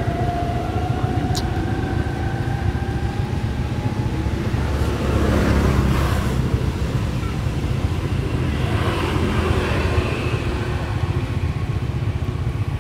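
Motor traffic running steadily, with vehicles swelling past twice, about five and nine seconds in.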